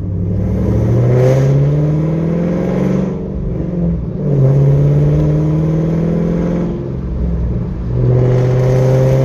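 Chevrolet Camaro SS V8 with aftermarket headers accelerating, its engine note climbing in pitch three times and dropping back between climbs.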